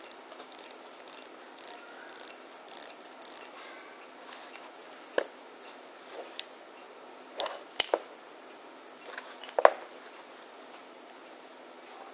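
Rotating diver's bezel of a Seiko SKZ327K1 Stargate watch being turned by hand, ratcheting: a run of quick clicks at about three a second, then a few louder single clicks spaced apart.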